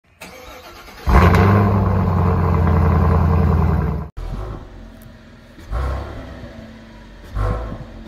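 A loud, steady engine-like drone, which stops suddenly about four seconds in. After it, a stock Chevrolet Impala V6 exhaust idles quietly with two short throttle blips near the end.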